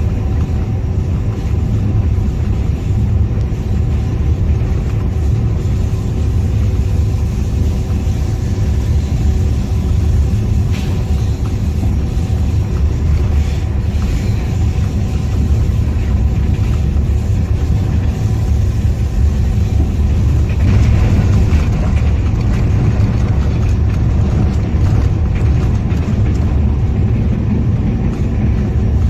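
GEU-20 diesel-electric locomotive running steadily while hauling a passenger train, heard from beside the cab: a loud, even low rumble with a few steady engine tones above it.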